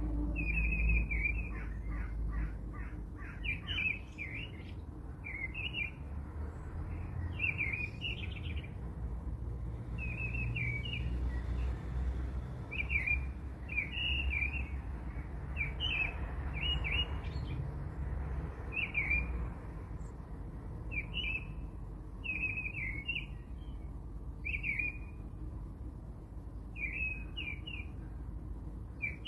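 A bird chirping in short high phrases repeated every second or two, over a low steady hum.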